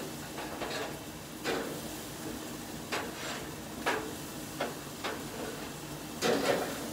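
Metal grill tongs clinking and scraping on the grate of a gas grill as burgers are turned, about six short clatters with the loudest near the end.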